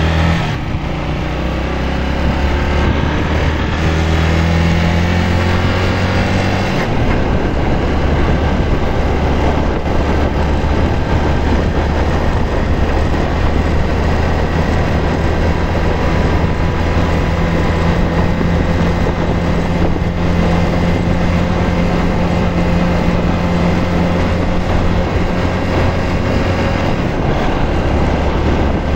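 A motor vehicle's engine running steadily at speed, with loud rushing wind on the microphone.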